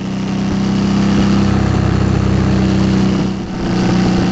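2008 Suzuki V-Strom 650's 645 cc V-twin engine running under way through its Delkevic aftermarket exhaust. The engine note grows louder over the first second, eases off briefly about three and a half seconds in, then picks up again.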